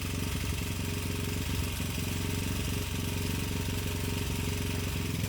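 A generator engine running at a steady speed with an even drone.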